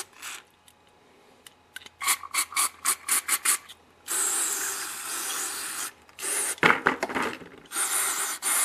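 Aerosol carburetor cleaner sprayed through a thin straw into the jet holes and bowl of a small carburetor: about two seconds in, a quick run of short spurts, then a steady hiss of about two seconds, more short spurts, and another long hiss near the end.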